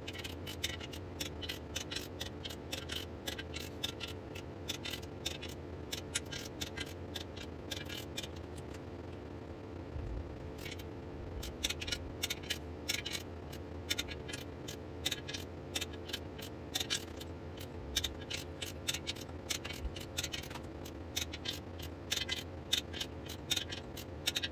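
Torque wrench ratcheting in quick runs of clicks, with short pauses between runs, as it tightens the nuts on ARP main studs in steps toward 60 ft-lb.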